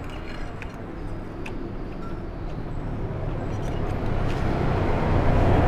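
Road-traffic rumble that grows steadily louder from about halfway through, as a vehicle approaches. A few light clicks of a spoon against the bowl sound over it.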